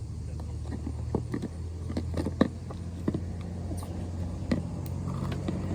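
Slime being squeezed and kneaded by hand, giving irregular small clicks and pops over a steady low hum.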